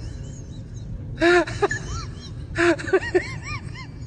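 A woman laughing in two bursts, about a second in and again near three seconds, each a breathy outburst followed by short rising-and-falling 'ha' syllables, over a low steady hum.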